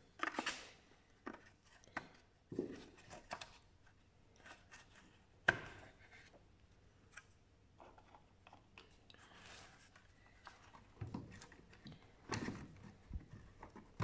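Plastic clicks, knocks and rustles from a BMW E46's front turn signal lamp housing and bulb socket being handled and fitted back, with one sharper click near the middle.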